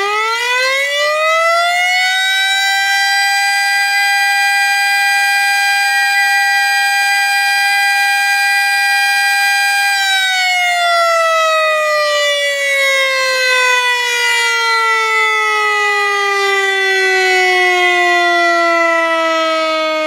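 Civil-defense warning siren winding up over the first two seconds, holding a steady wail, then slowly winding down to a low pitch through the second half. A steady high tone sounds alongside it throughout.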